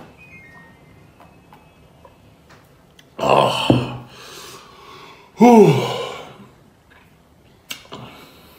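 A man chewing a mouthful of pig-skin roll quietly, then two loud burps, about three and five and a half seconds in, the second falling in pitch.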